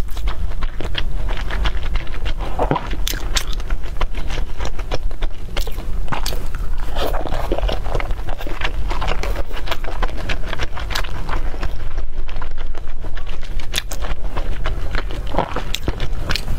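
Close-miked eating of red rice shrimp rice-noodle rolls: chewing and biting with many small, irregular wet clicks and crunches, over a steady low hum.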